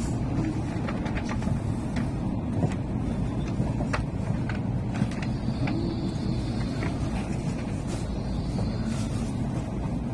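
Tokaido Shinkansen train running, heard inside the passenger car: a steady low rumble with scattered faint clicks and a faint high whine that comes and goes.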